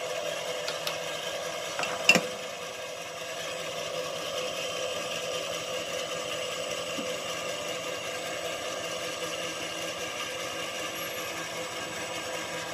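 Small benchtop metal lathe running steadily, its motor and spindle giving a constant whine as the chuck spins. A single sharp metallic clack about two seconds in is the loudest moment.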